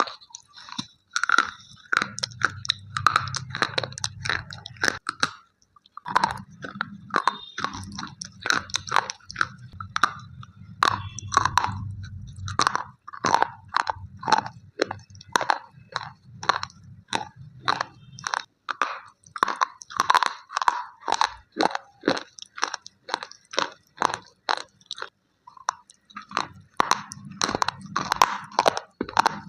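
Slate pencils being bitten and chewed close to the microphone: a steady run of sharp, crumbly crunches, about three a second, with a couple of short pauses.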